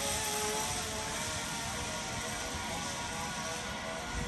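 Zip line trolley running along its steel cable with a steady hiss, the highest part of the sound fading about three and a half seconds in as the rider nears the far end.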